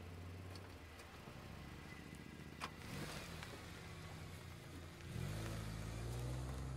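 Car engine running with a low, steady hum, then a single sharp click about two and a half seconds in. A little past the five-second mark the engine revs up quickly and stays loud.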